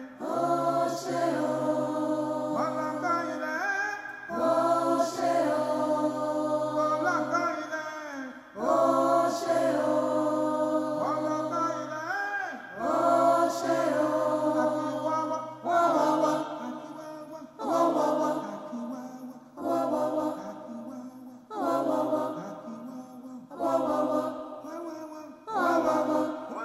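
Background music: chant-like singing over a low drone, the voice holding and bending long notes, then moving into short repeated phrases about every two seconds.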